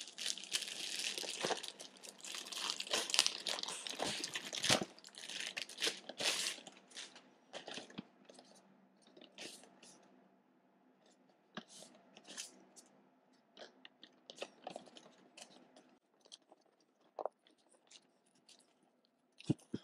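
A product package being torn and crinkled open by hand. The crackling and tearing is dense for the first six or seven seconds, then thins to scattered crinkles and clicks.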